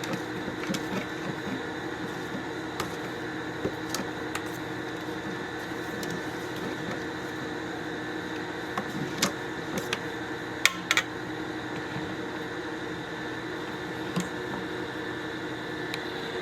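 A steady mechanical hum from a room appliance, with a few light clicks and knocks as the puppy food mush is stirred in its bowl, two of them close together about two-thirds of the way through.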